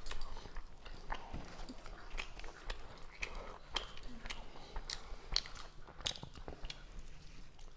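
Two people eating chicken curry and rice with their hands: irregular soft clicks of chewing and mouth sounds, mixed with fingers working food on the plates.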